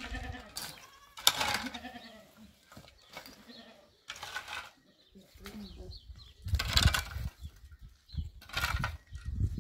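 A metal shovel scraping and scooping gravelly soil, several strokes about every two seconds, the loudest about seven seconds in. A goat bleats a few times between strokes.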